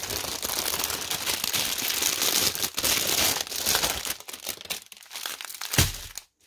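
Clear plastic packaging crinkling and rustling as the bundle of bagged diamond drills is handled and pulled out of its outer bag. The crinkling is dense for about four seconds, then thins to scattered rustles, with a thump near the end.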